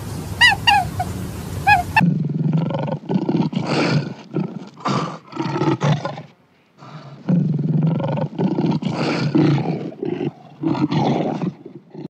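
Lion roaring and growling in two long bouts of rough, pulsing calls, with a short pause a little past midway. Before it, a quick run of high chirping calls stops abruptly about two seconds in.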